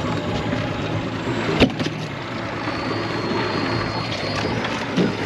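Boat engine idling steadily under wind and water noise, with a sharp knock about a second and a half in.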